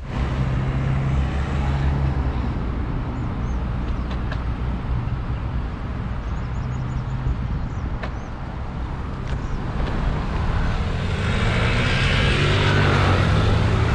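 Wind rushing over an action camera's microphone while riding a mountain bike, a steady low rumble that grows louder and hissier over the last few seconds.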